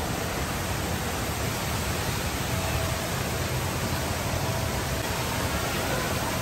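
The Rain Vortex indoor waterfall: a tall column of water plunging from an opening in a glass roof into a pool, making a loud, steady rush.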